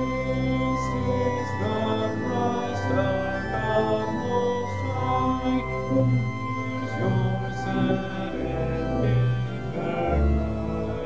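Congregation singing a hymn to organ accompaniment, with held organ notes under the voices.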